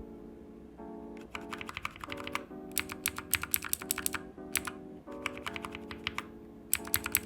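Mechanical keyboard keys pressed over and over, comparing a modified Outemu Blue switch (made linear, its click removed) with a stock clicky Outemu Blue switch on the key below. The presses come as sharp clicks in several quick clusters.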